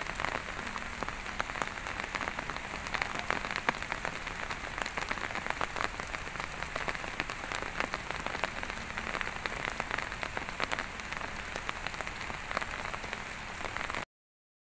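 Light rain falling, a steady hiss with many small drop hits close to the microphone. It cuts off suddenly near the end.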